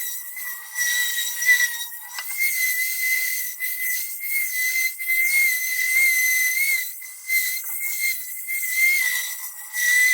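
Electric orbital sander running on a cast-iron table saw top with 120-grit paper: a steady high-pitched whine over a hiss, swelling and fading every second or so as it is worked across the surface.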